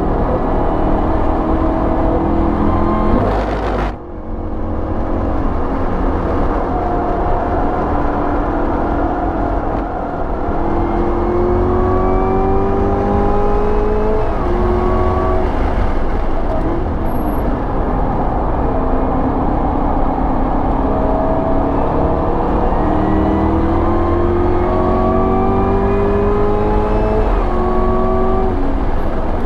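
Supercharged 6.2-litre V8 of a Camaro ZL1 1LE under hard acceleration, heard from inside the cabin: the engine note climbs steadily in pitch through each gear and drops back at the upshifts, over a heavy low rumble. There is a brief break about four seconds in.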